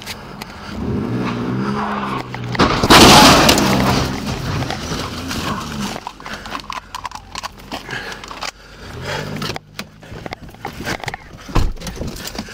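A car engine revving with tyres skidding, loudest about three seconds in, followed by the knocks and rustle of a body-worn camera as its wearer runs, and a low thud near the end.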